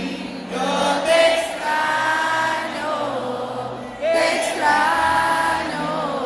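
Live concert singing in an arena, heard from the stands: a sung melody in held, gliding phrases carried by many voices together, the crowd singing along with the performers.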